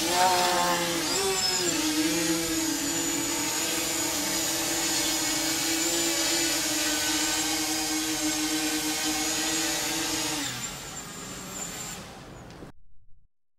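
H-frame quadcopter's four brushless electric motors and propellers whining steadily in flight. The pitch wobbles briefly about a second in, then holds steady before fading out near the end.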